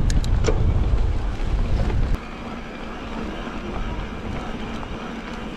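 Wind buffeting the microphone on a moving mountain bike, with a few sharp clicks in the first half second. The low rumble cuts off suddenly about two seconds in, leaving a steadier rushing hiss of the bike rolling along a forest road.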